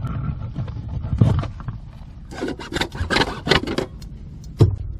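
Scraping and rubbing against a plastic sump pit and the dirt around it as a hole saw is worked out of a freshly drilled hole: a knock about a second in, a run of short scrapes from about two to four seconds in, and another knock near the end.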